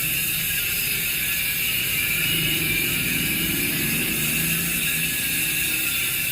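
Rear hub of a PAPS Pro-1 version 3 bicycle wheelset freewheeling: the pawls click in a fast, steady buzz as the wheel spins.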